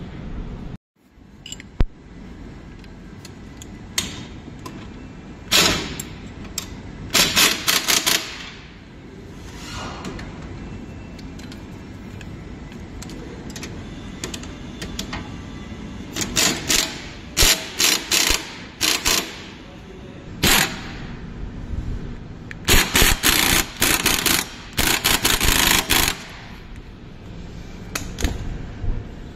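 Cordless impact wrench hammering in repeated short bursts as it runs a suspension bolt in on a Polaris Ranger XP 1000's front end.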